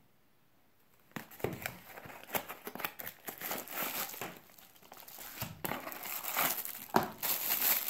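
Packaging being handled by hand: crinkling and rustling that starts about a second in, with scattered sharp clicks and knocks.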